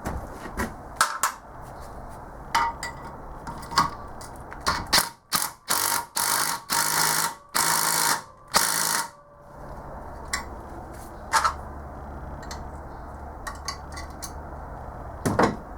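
Homemade valve spring compressor being worked on a valve spring with hand tools. Scattered sharp metal clinks and taps, and in the middle a run of about five short, loud rasping bursts, like a ratchet wrench turning the compressor's bolt.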